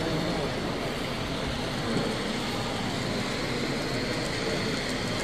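Steady, even background noise of a busy exhibition hall, with no single sound standing out.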